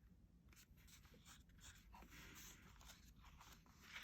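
Near silence, with faint scratchy rustling of paper as a picture-book page is handled.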